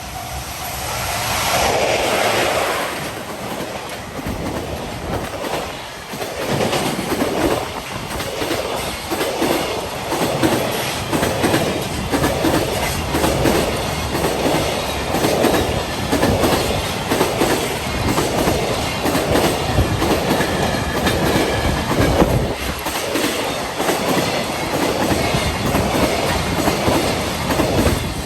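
Freight train passing at speed on jointed track: the locomotive goes by loudest about two seconds in, then the wagons' wheels clatter over the rail joints in a steady rhythm, roughly one and a half beats a second.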